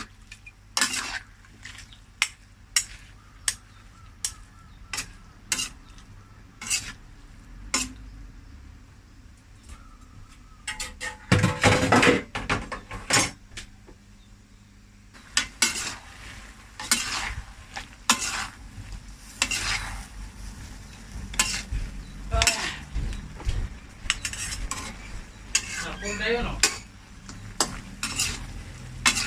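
A cooking utensil clacking and scraping against a pan as rice noodles are stir-fried, with a light sizzle underneath. The clacks come irregularly, a bit over one a second at first, with a loud busy stretch near the middle and denser stirring in the second half.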